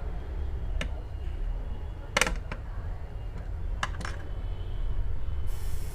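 A few small, sharp clicks and taps of a repair tool working at a tight part of a smartphone, the loudest a quick cluster about two seconds in, over a steady low hum.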